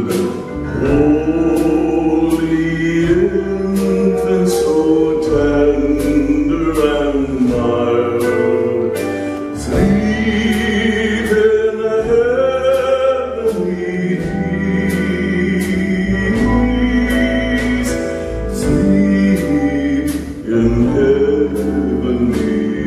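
Loud live music: sung held notes over instrumental accompaniment with a steady beat.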